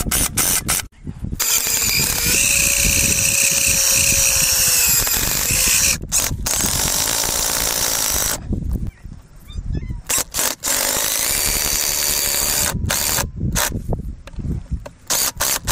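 Cordless drill driving screws into a wooden fence brace and post. A few short blips come first, then a long steady run from about a second and a half in whose whine sags as the screw seats. A second run follows, then a string of short on-off bursts.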